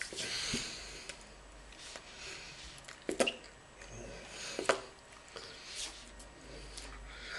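Soft breathy mouth noises and lip smacks from a person gesturing silently, with rustles from hand and sleeve movement. Two sharp smacks or clicks come about three seconds in and again near five seconds.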